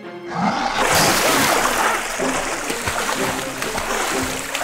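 A crocodile thrashing in water: a sudden big splash, then continuous splashing and churning water, over background music.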